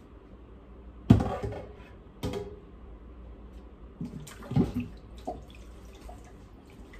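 Clatter of kitchenware: a sharp knock about a second in, the loudest, then a few more knocks and clinks over the next four seconds.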